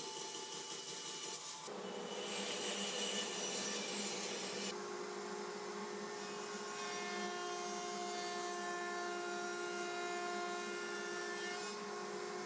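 Power saw running and cutting scrap wood: a steady motor whine under the rasp of the blade, in short clips that change abruptly about two and five seconds in and again near the end.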